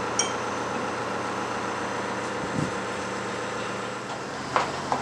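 Crane engine running steadily while it hoists a heavy load on slings, with a few light knocks and clicks, two of them near the end.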